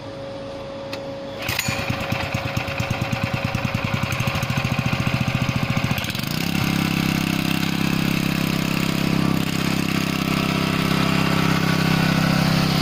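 Robin gasoline engine of a hydraulic pump unit being started. It catches about a second and a half in and runs with a fast, even beat, then about six seconds in settles into a steady, faster run.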